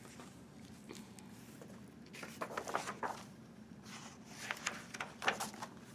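Hardcover picture book being opened and its pages turned: two short bouts of paper rustling and light crackles, about two seconds in and again around four and a half seconds, over a faint low hum.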